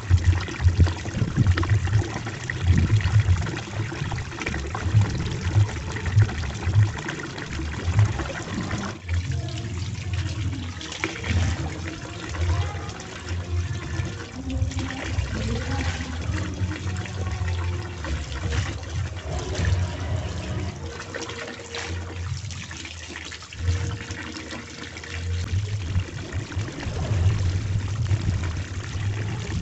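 Tap water pouring steadily into a large plastic tub, with irregular splashing and sloshing as laundry is rinsed and wrung by hand in a basin of water.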